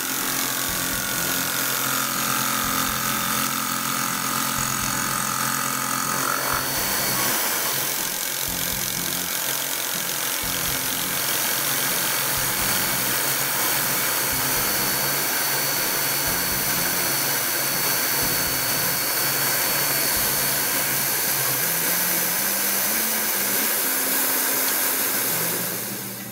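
Tormach PCNC 1100 CNC mill face-milling the top of a metal block with a Super Fly Cutter, with a steady hiss of mist coolant. The cut runs evenly with a steady whine and eases off near the end as the cutter clears the block.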